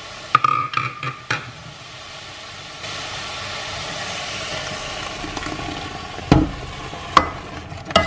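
Simmering tomato-onion masala sizzling in a pot, with a steel ladle clinking against the pot several times early on. Thick ground coconut paste is poured in from a steel mixer jar and stirred, with a heavier knock about six seconds in and two more clinks near the end.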